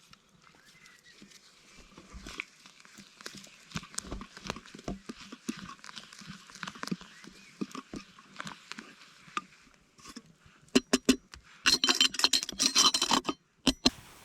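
Scattered light clicks and knocks of handling cooking gear, then near the end a quick run of sharp clicks and about a second and a half of loud scraping and rattling.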